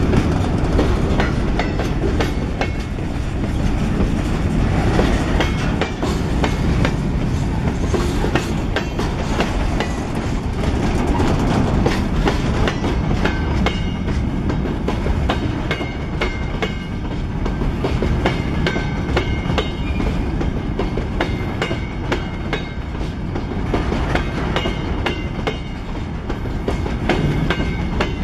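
Freight train of covered hopper cars rolling past close by: a steady rumble of wheels on rail with a constant clickety-clack of the trucks over the rail joints, and a few faint high squeals in the second half.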